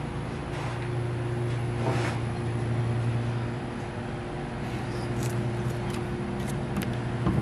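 Antique General Electric belt-drive refrigerating machine running: a 1/6 hp GE motor with flywheel and fan turning a welded-case compressor by belt, giving a steady low hum, with a few light clicks in the second half.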